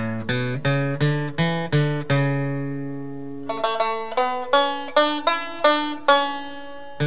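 Background music: a plucked string instrument picking a melody in quick, sharply struck notes that ring and fade. One note is held ringing about two seconds in.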